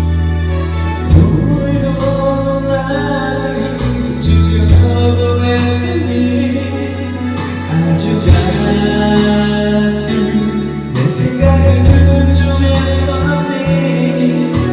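Music: a singer performing over a karaoke backing track, with held bass notes that change every second or two.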